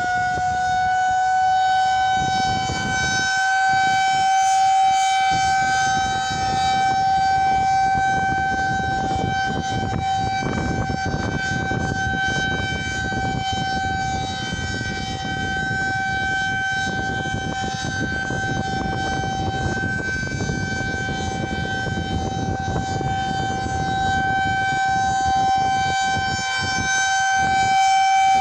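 Civil defense outdoor warning sirens sounding a steady tone on one held pitch with overtones, slowly swelling and fading in loudness. It is the routine weekly test of the tornado sirens.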